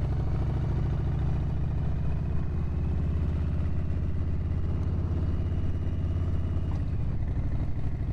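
Harley-Davidson Street Bob's Stage 1 Milwaukee-Eight V-twin running steadily as the bike is ridden at an even pace, a deep pulsing exhaust note.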